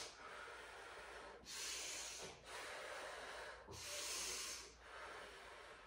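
A person breathing slowly and audibly while holding a yoga forward bend. The hissing breaths alternate louder and softer about every second, a full breath roughly every two seconds.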